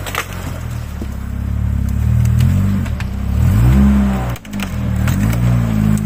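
Off-road vehicle engine revving up and falling back several times, with a few sharp knocks and clatter.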